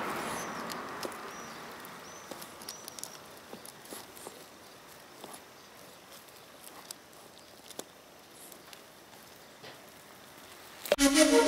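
Faint, scattered clicks and scrapes of a Hermann's tortoise's shell and claws against a rough limestone rock, after a hiss that fades out over the first two seconds, with a few short high chirps in the first three seconds. A flute tune starts near the end.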